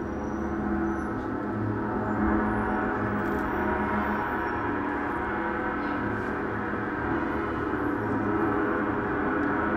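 Large hammered gong sounding continuously: a dense, sustained wash of many overlapping tones, steady in level, with a low pulsing hum underneath.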